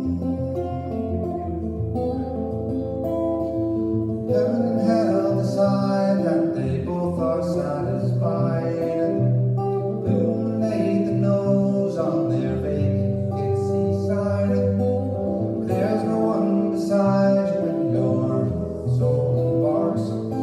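Solo archtop guitar playing, with notes and chords ringing on through a continuous passage.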